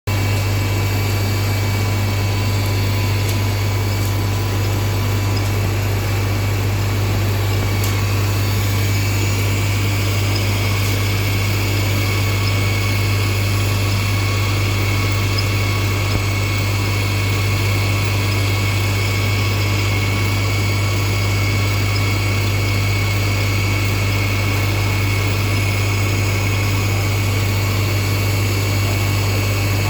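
Valve lapping machine running steadily on a valve seat: a constant low electric-motor hum with a thin steady whine above it.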